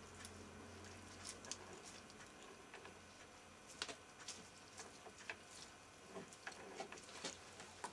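Faint, irregular metallic clicks and light knocks as the gear cluster, shafts and selector forks of a BSA three-speed motorcycle gearbox are worked into the gearbox casing by hand.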